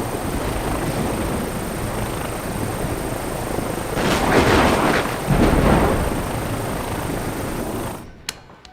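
A loud, dense rumbling roar that swells twice, about four and five and a half seconds in, then fades out near the end.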